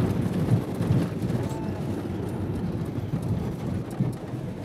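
Inside a moving van's cab: steady low engine and road rumble with irregular low thumps from the road surface.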